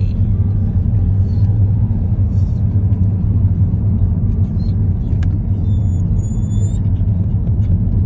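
Steady low rumble of road noise inside a moving car. About two-thirds of the way through, a dog in the back seat gives a brief high, thin whine.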